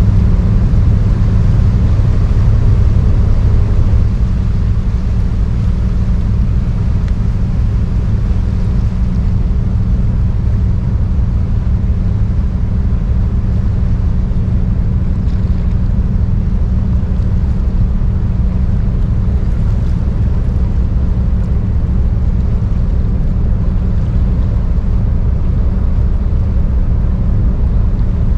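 Container ship ARA AMSTERDAM's engine giving a steady low drone as the ship passes along the canal, with a wash of wind and water noise over it. It is a little louder in the first few seconds.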